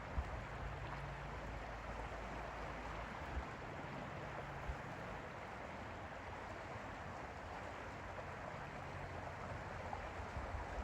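Lake water making a steady, gentle rushing hiss, with a low rumble and a few soft thumps underneath.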